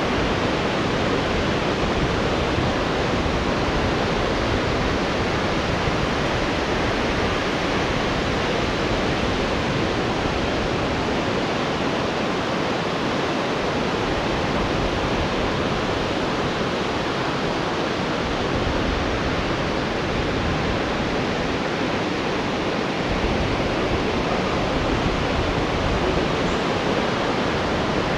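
Steady rushing noise of a rough, windblown sea: breaking surf and strong wind, with no let-up.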